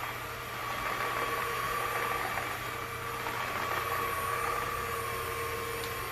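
Aposen H120 cordless stick vacuum running on its normal (not yet boost) power setting. It makes a steady, very quiet motor whine with a high tone that wavers slightly, over airflow noise and a low hum.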